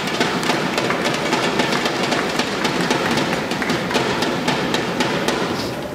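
Crowd applauding after a point, a dense patter of many hands clapping that eases off near the end.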